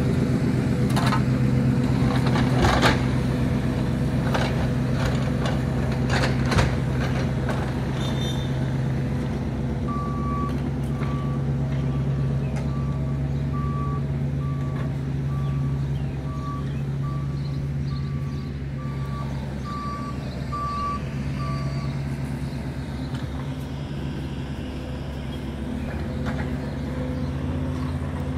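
Construction machinery engines running steadily, with a few sharp metal clanks in the first several seconds. From about a third of the way in, a vehicle's backup alarm beeps about once a second for some twelve seconds, then stops.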